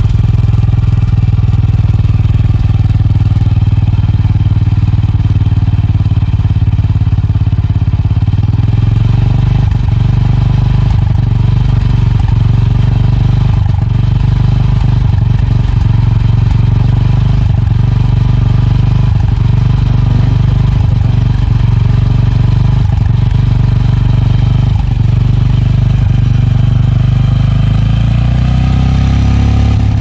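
Honda CB350 RS's 348 cc air-cooled single-cylinder engine running steadily at the exhaust, with throttle slightly raised; loud, about 90 to 97 dB on a meter at the silencer tip. The engine note shifts near the end.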